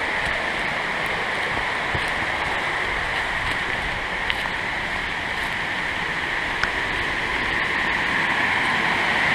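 Rushing water of a small stream and cascade, a steady hiss that grows a little louder near the end.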